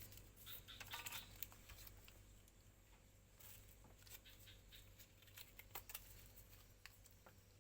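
Near silence: a faint steady low hum with scattered small clicks and taps of handling, a little busier in the first second or so.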